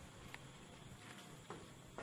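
Near silence: faint room tone with a few soft ticks, the clearest about one and a half seconds in.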